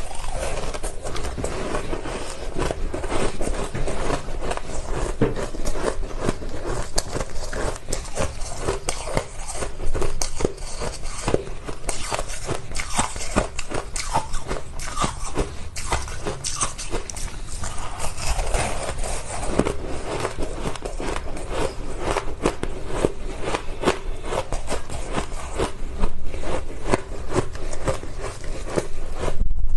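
Ice being bitten and chewed close to the microphone: dense, continuous crunching and crackling.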